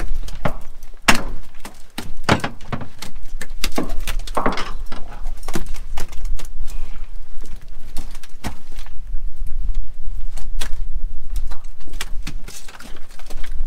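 Irregular knocks and clatter of fish and gear being handled on the deck of a cod jigging boat, over a steady low rumble.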